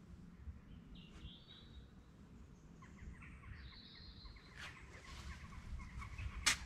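Quiet outdoor ambience over a low rumble, with a few short bird chirps. In the second half comes a run of rapid small ticks, and one sharp click sounds near the end.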